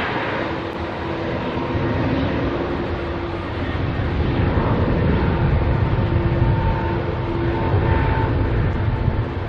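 Airbus A321neo's two CFM LEAP-1A turbofan engines at takeoff thrust during the takeoff roll: a steady jet roar with a deep rumble that grows louder about four seconds in, and a faint steady hum held underneath.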